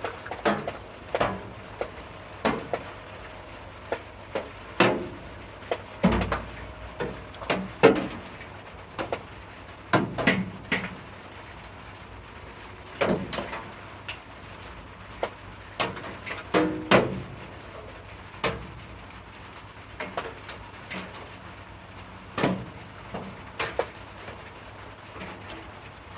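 A string of irregular sharp knocks and clicks, about one or two a second, a few with a short ring, over a low steady hum.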